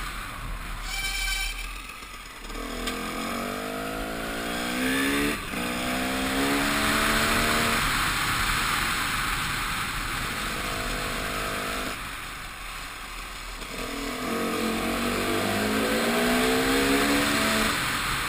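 KTM EXC 300 two-stroke enduro engine accelerating through the gears. Its pitch climbs in repeated runs, each broken by a gear change, and it eases off for a moment past the middle, all over a steady rushing noise.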